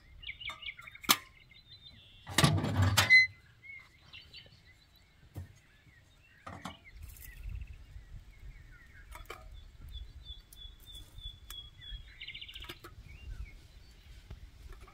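Metal clatter of a samovar's parts being handled, a clank with a brief ringing about two seconds in, followed by light clicks of metal fire tongs picking embers from a wood stove. Small birds chirp and trill throughout, and a low rumble comes in about halfway.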